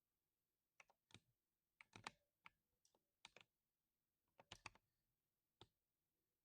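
Low-end mechanical keyboard being typed on, with a deep 'tock' keystroke sound: a dozen or so faint keystrokes at irregular spacing, a few bunched into quick runs about two seconds in and again past four seconds.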